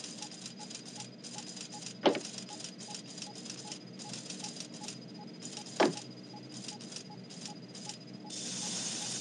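Missile launch control room equipment running: irregular, rattling clatter of hiss that switches on and off, over a faint steady high tone and soft ticking about three times a second. Two sharp, short falling blips come about two and six seconds in, and a steady hiss rises near the end.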